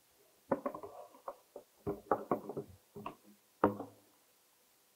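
Plastic drainage pipes and fittings knocking and clattering against each other and the workbench as they are handled: a quick run of hollow knocks, the loudest about three and a half seconds in.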